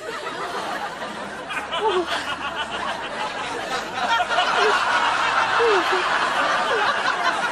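Laughter from many people at once, growing louder about halfway through.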